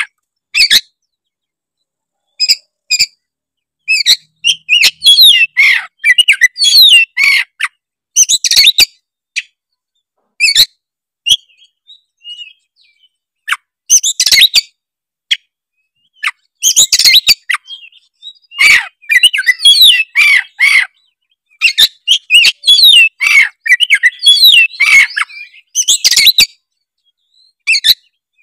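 Oriental magpie-robin (kacer) singing in bursts of quick, varied whistles and chatters, with pauses between bursts and a longer pause near the middle.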